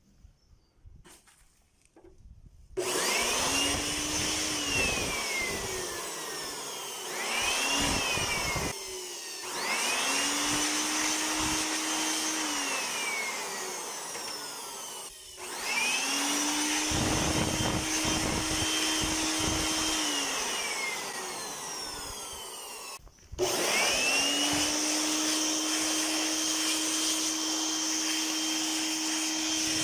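Small high-speed electric motor of a handheld cleaning appliance, switched on in about five bursts. Each start gives a rising whine that settles to a steady pitch, and it winds down with a falling whine before the next start. The last run is held steady to the end.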